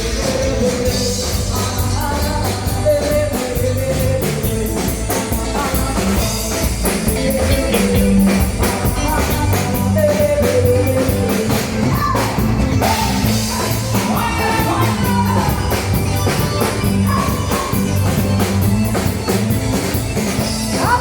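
Rock music with a singer over drum kit and guitar, at a steady beat.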